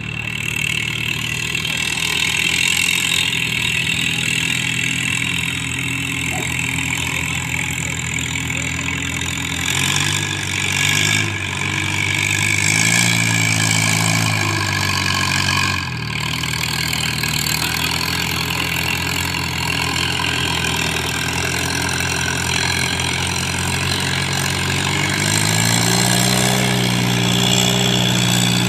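Antique tractor engine running, its pitch rising and falling around the middle and climbing again near the end.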